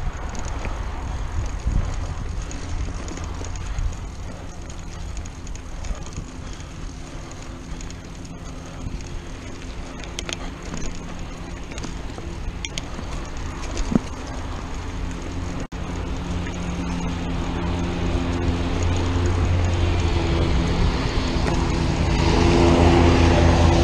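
Mountain bike rolling along dirt singletrack, heard from a chest-mounted camera: steady wind buffeting and tyre rumble with a few sharp rattles from the bike. Over the last several seconds a steady droning hum grows louder.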